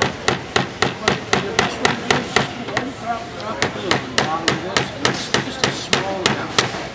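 Hammers driving nails into wood, a quick run of sharp strikes at about four a second, thinning out near the end.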